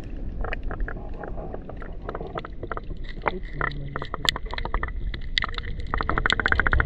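Sea water heard through the action camera held underwater: a muffled low rumble of moving water with many sharp clicks and crackles scattered through it, and a quick, even run of clicks shortly before the end.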